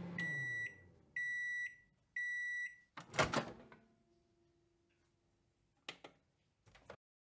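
Microwave oven finishing its cycle: the running hum winds down, three beeps sound, then the door pops open with a loud clunk. Two short clicks follow near the end.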